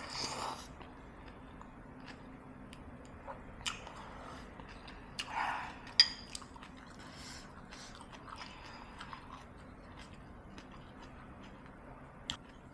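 A person eating chicken soto: chewing and biting, with scattered small clicks and one sharp clink about six seconds in.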